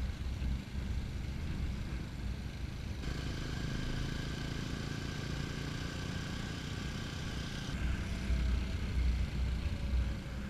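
TVS Apache 200 4V's single-cylinder engine running while riding, with heavy wind rumble on the microphone. The sound shifts abruptly about 3 seconds in and again near 8 seconds.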